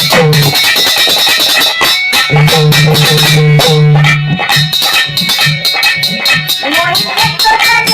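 Instrumental interlude of a Hindi devotional bhajan: a plucked-string melody over a fast, steady percussion beat and a held low bass line.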